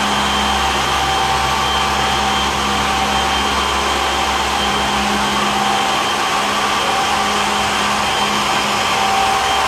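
Sugatec industrial grain-and-flour suction machine running, vacuuming spilled cornmeal off a concrete floor through a hose and floor nozzle. It makes a loud, steady rush of air with a constant whine on top.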